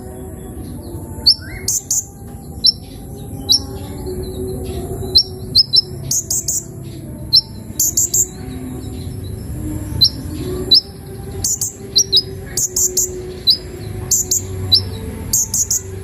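Sunbird (kolibri ninja) giving short, sharp, high chirps, singly or in quick clusters of two to four, at irregular intervals rather than a full song: the bird is not in the mood to sing.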